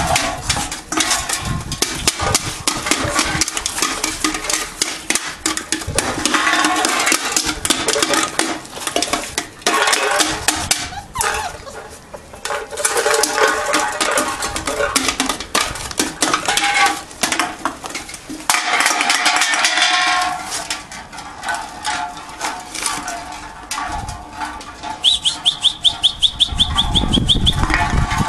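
39-day-old puppies whining and yipping while empty cans and plastic bottles clatter and knock on the tiled floor.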